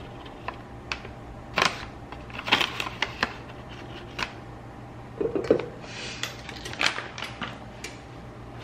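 Small ingredient packets being handled and emptied over a bowl: scattered light clicks and taps with a few short crinkly rustles.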